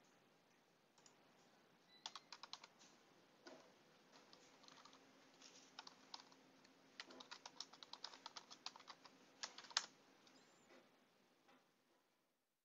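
Faint typing on a computer keyboard: a run of irregular key clicks, some in quick bursts.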